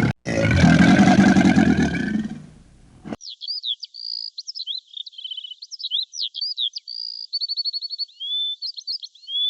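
A loud, low-pitched call or rumble fades out over the first couple of seconds. It cuts to a songbird singing a quick, varied run of high whistles, chirps and trills.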